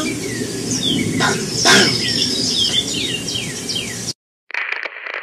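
A run of short, falling, bird-like chirps over a steady hiss that cuts off suddenly about four seconds in, followed by a brief choppy, muffled sound.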